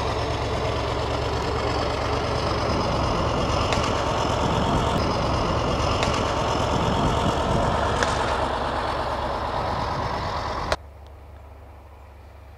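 Steady, loud rushing of wind buffeting a handheld phone's microphone in the open, with a few sharp handling clicks; it cuts off abruptly about eleven seconds in, leaving a much quieter background.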